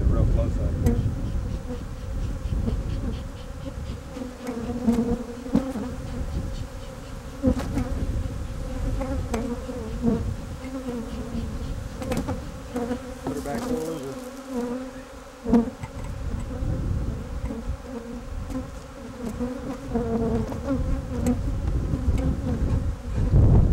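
A mass of honey bees buzzing up close, a hum that wavers in pitch, with a few light knocks in between.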